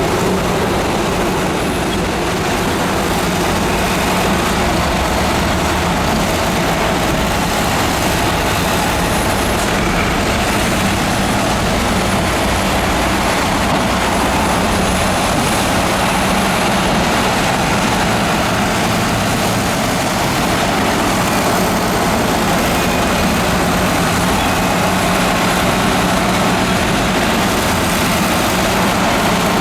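Heavy diesel earthmoving machinery running steadily under work: the deep, continuous engine sound of a bulldozer or dump truck, with a faint, wavering high whine above it.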